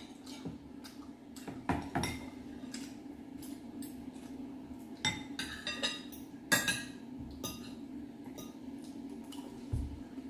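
Metal forks and spoons clinking and scraping against ceramic bowls while eating, in irregular light clinks with a few louder ones.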